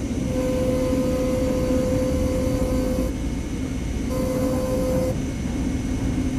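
Steady mechanical rumble with a steady whine over it that sounds for about three seconds, stops, and comes back for about a second near the end.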